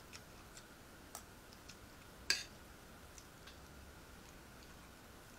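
Quiet eating sounds: scattered small clicks of chewing and a metal serving spoon on a plate, with one sharper click a little over two seconds in, over a faint steady hum.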